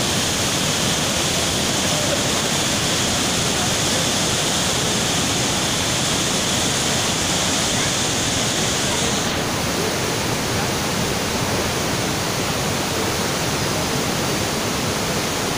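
Saraswati River waterfall pouring into a narrow rock gorge: a steady, loud rush of falling water. Its hiss turns a little duller about nine seconds in.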